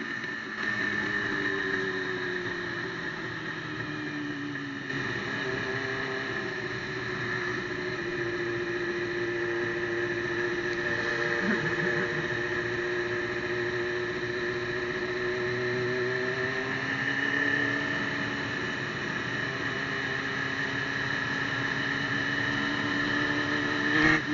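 Sport motorcycle engine running under way, its pitch falling and rising with throttle and gear changes: easing off in the first seconds, holding steady through the middle, dropping about two-thirds of the way through and then climbing again. A steady high whine sits alongside, and there is a brief louder burst just before the end.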